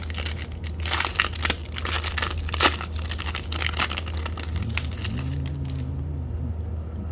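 Plastic wrapper of a Topps baseball card pack being torn open and crinkled, a dense crackly rustle that dies down after about four and a half seconds.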